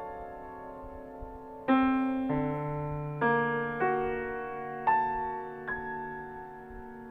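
Solo piano playing slow, soft chords: a chord rings on and fades, then new chords are struck about every half second to a second, six times, each left to ring and fade.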